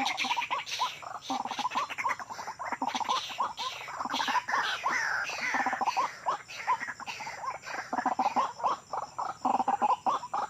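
White-breasted waterhens calling: a fast, continuous run of short repeated notes, several of them sliding down in pitch.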